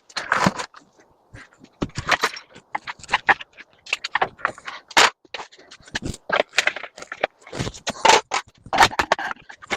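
Aluminum trim being pried and pulled off a door by hand: irregular scraping with sharp metallic clicks and knocks.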